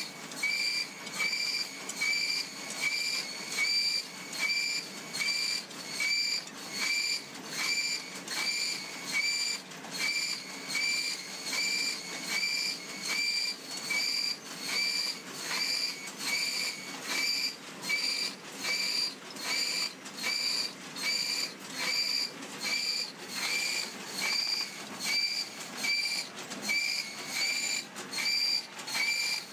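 WM-700HC high-speed dowel pin cutting machine running, its saw cutting wooden dowel rods into short pins. Each cut makes a short whine, repeating evenly about three times every two seconds.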